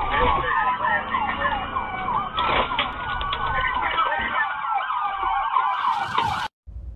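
Police car sirens: a slow rising and falling wail overlapping a rapid repeating yelp, cutting off suddenly near the end.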